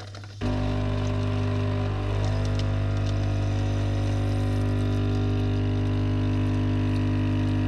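Bosch pod coffee machine brewing: its pump starts about half a second in and runs with a loud, steady hum while coffee streams into the mug.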